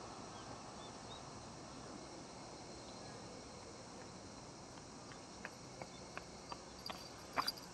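Summer field ambience: a faint steady chirring of insects in the grass. In the last couple of seconds comes a run of short sharp clicks, two of them louder near the end.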